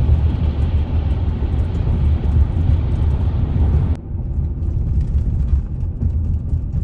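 Steady low rumble of a vehicle, heard from inside a minivan's cabin. About four seconds in it cuts suddenly to a duller, slightly quieter rumble.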